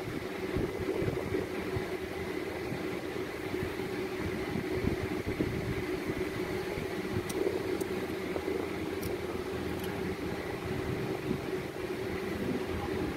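Steady machine hum with a constant low tone, and a few faint ticks about two thirds of the way through.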